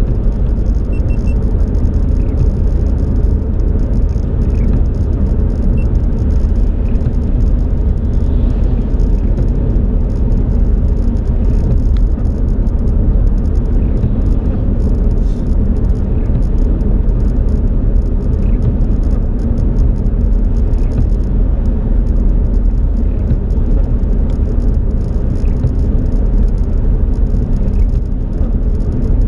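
Steady low rumble of a car driving at highway speed, heard from inside the cabin: tyre and engine noise.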